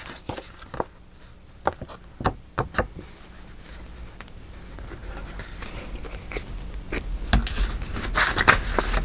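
Paper and craft supplies handled on a tabletop: scattered light taps and clicks, then rustling and scraping that grows louder toward the end.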